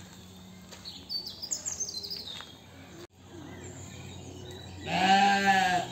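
Birds chirp in short high notes for the first couple of seconds. Then a grey horned heath sheep gives one loud, quavering bleat, about a second long, near the end.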